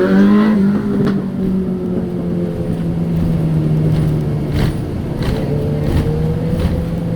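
Moving road vehicle's engine and road noise: a steady drone whose pitch rises slowly, with a few brief knocks about two-thirds of the way through.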